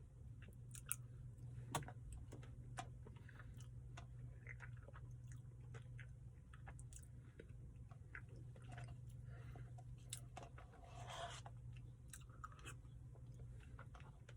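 A person chewing a mouthful of Blizzard soft-serve with chocolate brownie pieces, faint wet chewing with small crunches and clicks, over a steady low hum.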